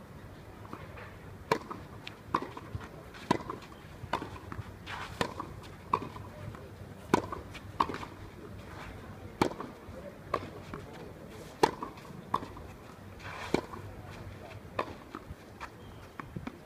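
Tennis rally on a clay court: rackets striking the ball and the ball bouncing on clay, a sharp hit every second or so. The loudest strikes come about every two seconds, with fainter bounces and far-side hits between them.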